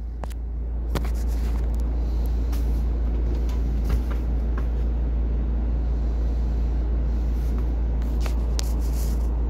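Bus engine running, heard from inside the cabin as a steady low rumble, rising a little during the first second and then holding, with a few faint clicks and rattles.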